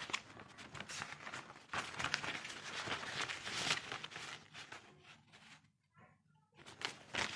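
Sheets of paper rustling as documents are handled and turned close to the microphone, in uneven bursts with a brief lull about six seconds in.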